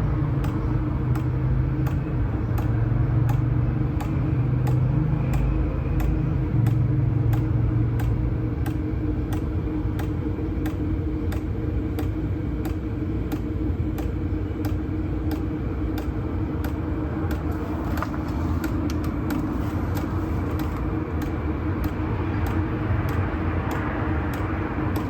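Small 2 kW diesel heater running through its startup: the blower's steady hum, with the fuel dosing pump clicking about twice a second. A deeper low hum fades out about eight seconds in.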